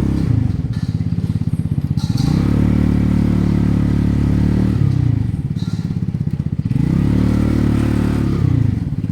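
Royal Alloy GP180 scooter engine running on a slow ride, its revs climbing, holding and dropping away about three times as the rider speeds up and eases off.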